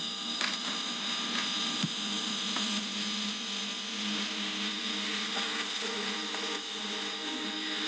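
Air-cooled fiber laser welding machine running with a steady whir and constant hum, with a few faint clicks in the first two seconds.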